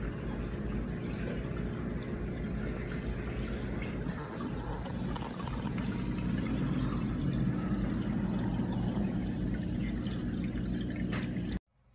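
Aquarium filter water splashing and trickling steadily into the tank, over a low hum. It cuts off suddenly near the end.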